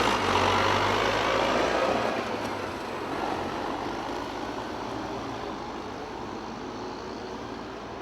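Tractor engine running, loudest in the first two seconds and then fading steadily.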